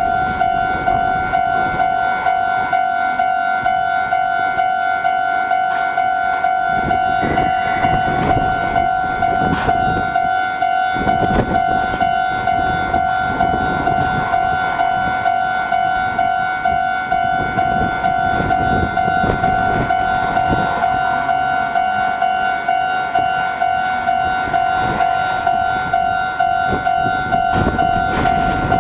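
Japanese railway level-crossing warning bell ringing, an electronic ding repeating in a quick, even rhythm to signal an approaching train.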